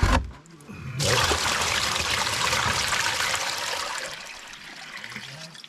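Water poured from a five-gallon plastic bucket onto a classifier tray, splashing and rushing through into a plastic tub below as the gold-dredge concentrates are rinsed. A short knock comes first, the pour starts about a second in and tapers off near the end.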